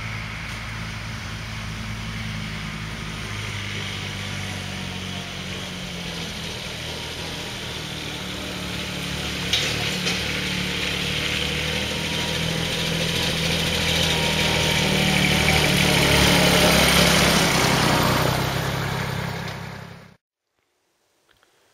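Kubota B1610 compact tractor's small three-cylinder diesel engine, about 700cc, running steadily as the tractor drives closer, growing louder toward the end before cutting off suddenly.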